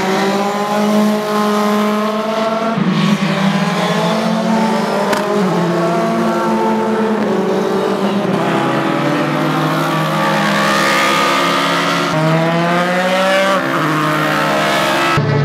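Single-seater formula race cars running flat out past the track. Their engines climb steadily in pitch and drop sharply at each upshift, about every two to three seconds, with more than one car heard at once.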